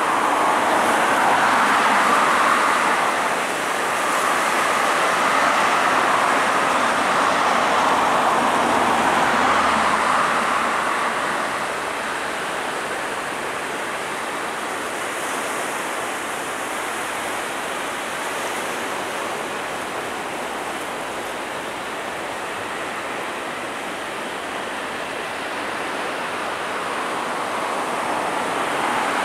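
Boeing 777 twin jet engines running at taxi power, heard at a distance as a steady rushing noise, a little louder for the first ten seconds or so and then easing.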